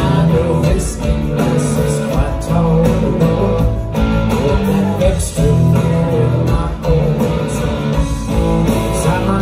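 Live rock band playing loud, with electric guitars over drums and keyboard, heard from within the audience.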